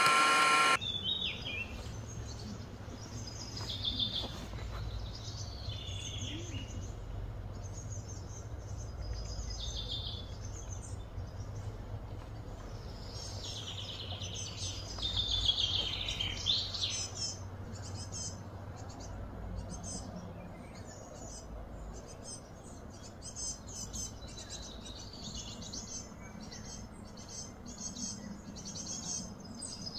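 Birds chirping and calling on and off over a steady low rumble of outdoor background noise. A loud, steady mechanical-sounding whine cuts off abruptly just under a second in.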